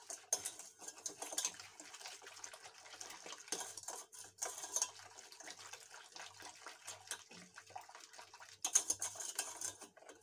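A whisk stirring a thick paste of cocoa, sugar and starch with a little milk in a stainless steel pot, wet scraping and clicking against the pot, with a louder run of strokes near the end. It is the first mixing stage, with only a little milk, before the rest is added.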